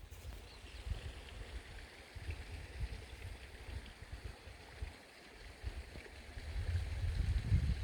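Wind buffeting the microphone in uneven gusts, swelling near the end, over a steady faint outdoor hiss.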